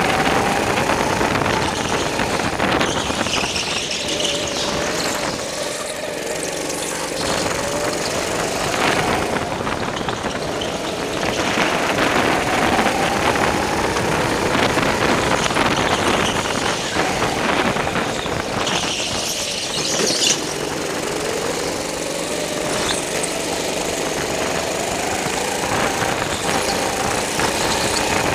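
Go-kart motor running hard while lapping, its pitch rising and falling as the kart speeds up on the straights and slows for the corners, with brief tyre squeals through the turns.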